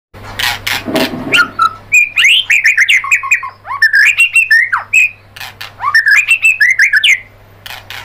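White-rumped shama singing a fast, varied song of whistled and slurred notes mixed with harsh clicking notes, stopping about seven seconds in.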